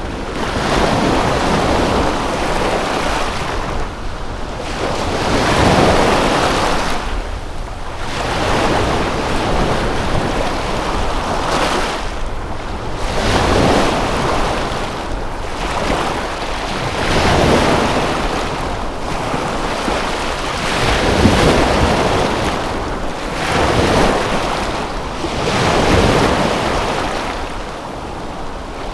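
Water waves washing in and drawing back, one swell every two to four seconds.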